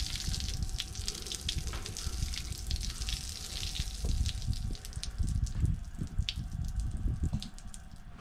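Liquid gushing and splashing out of an opened camper water-line drain valve as the line is flushed through with pink RV antifreeze for winterizing. The flow thins out near the end.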